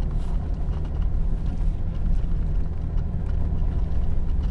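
A 4x4 driving on a dirt road, heard from inside the cabin: a steady low rumble of engine and tyre noise.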